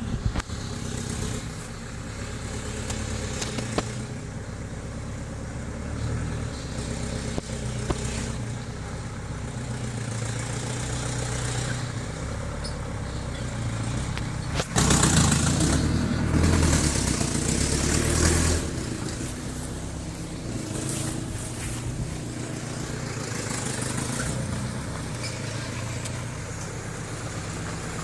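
Diesel engine of a Toyota FJ40 running under way, with a steady low engine note. About halfway through it gets louder for a few seconds, and a few sharp knocks are heard along the way.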